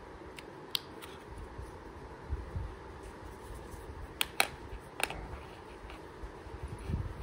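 A few sharp small plastic clicks, the loudest about four seconds in, over soft rubbing and bumps of handling, as a USB-C cable plug is fitted to the charging port of a OnePlus Nord Buds earbuds case.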